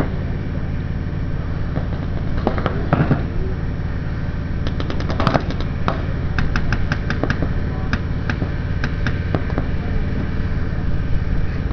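Paintball markers firing: sharp pops, in one quick string of about six shots and then scattered single shots and short strings, over a steady low rumble.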